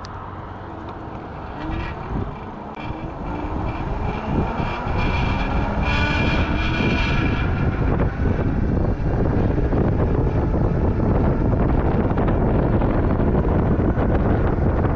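Engwe Engine Pro e-bike's rear hub motor pulling at full power from a standstill, its whine rising in pitch over the first several seconds. Tyre and wind noise build with speed and turn into a loud, steady wind rush on the microphone for the second half.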